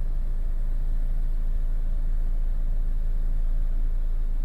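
GMC Terrain's engine idling steadily, a constant low hum heard from inside the cabin.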